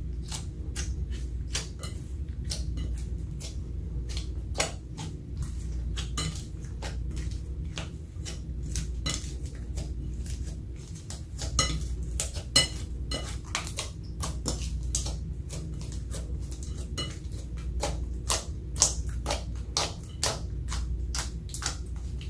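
Clear slime being mixed and squished, giving off irregular sticky clicks and pops, a few to several a second, with some louder pops scattered through, over a steady low hum.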